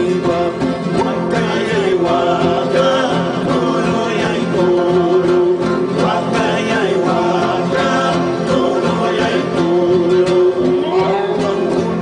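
A live acoustic guitar ensemble playing, several guitars plucking and strumming together, while a man sings a held, wavering melody over them.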